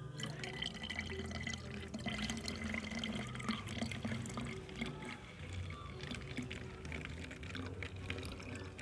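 Water pouring in a steady stream from a plastic pitcher into a narrow-necked plastic bottle, filling it to the top. The water is the last third of a lactoserum, molasses and water bio-fertilizer mix.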